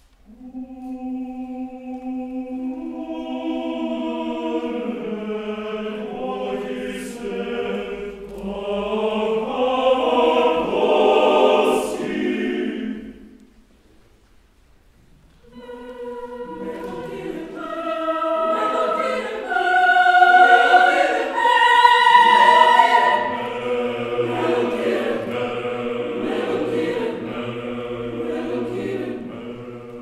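Mixed choir of women's and men's voices singing unaccompanied: a phrase swells and breaks off about thirteen seconds in, and after a short pause the voices come back in and build, the low voices holding a steady low note towards the end.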